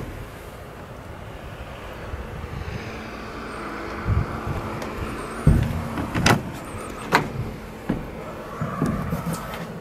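Carbon-fiber cabin door of a fiberglass boat being opened and stepped through: a handful of sharp knocks and latch clicks with footsteps, the first about four seconds in, over a low steady hum.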